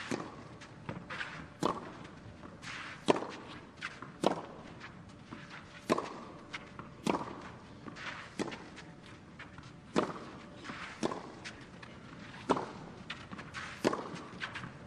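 Tennis ball struck back and forth by rackets in a long baseline rally, a sharp hit roughly every second and a half, about ten shots in a row.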